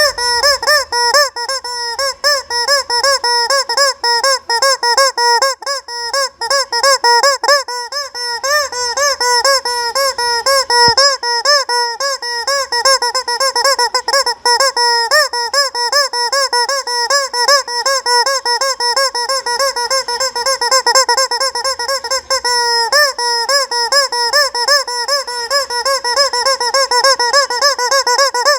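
Squeaky rubber chicken toy squeaking over and over, several shrill squeaks a second without a break.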